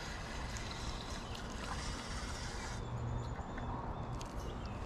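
Steady noise of running river water with a low rumble underneath; the higher hiss drops away about three seconds in.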